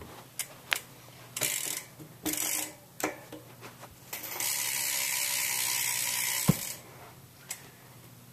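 Stock DK BMX rear hub freewheel ratcheting as the wheel spins: a few short bursts of clicking, then a steady, fast buzz of clicks for about two and a half seconds that stops with a knock, and a single click near the end.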